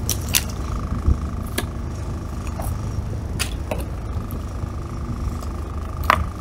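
A kitchen knife cutting through a fish's head on a plastic cutting board: a few sharp clicks and taps, the loudest a little before the end. They sound over the boat's steady low rumble and a thin steady whine.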